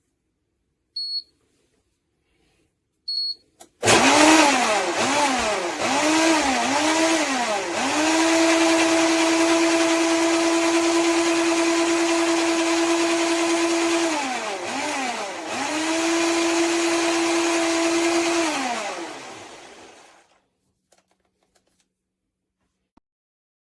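Tefal Blendforce II 600 W jug blender motor, first pulsed in short bursts with the pitch rising and falling, then run steadily. It is pulsed twice more, runs again and winds down to a stop. Two short high-pitched blips come just before it starts.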